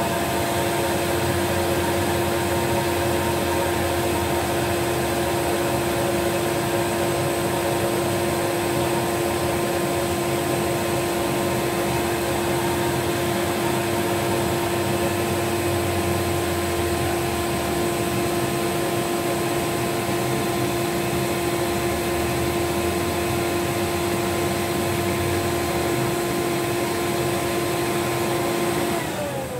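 Miele vacuum cleaner running steadily with a constant whine. Its hose is sealed with a sock onto a bare Electrolux Z87 motor, so the airflow drives the motor's fan and spins the armature while its commutator is skimmed. The noise cuts off suddenly near the end.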